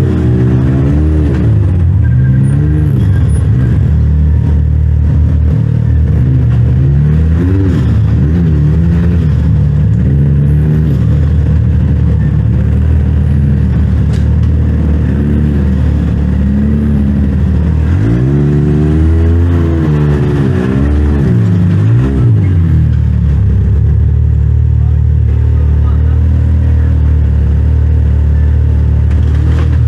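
Side-by-side UTV engine revving up and down again and again under throttle, with the biggest swings about two-thirds through, then settling to a steady drone near the end.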